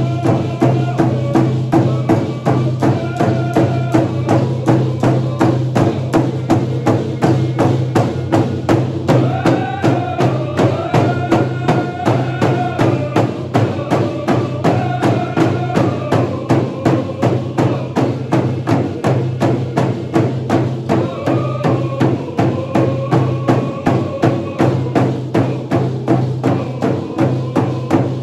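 A group beating hide hand drums in a steady unison beat while many voices sing a song together.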